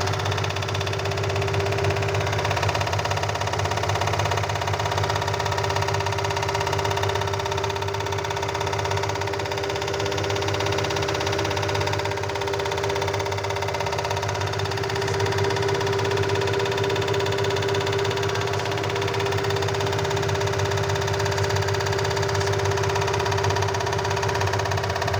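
Washing machine running: a steady motor hum with a constant whine above it.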